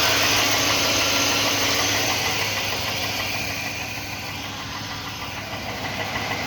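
2001 Chevrolet Silverado's 4.8-litre V8 idling on a cold start with a knock from the bottom end, which the owner takes for piston slap. It is a cold-engine knock that goes away once the engine warms. The idle gradually gets a little quieter.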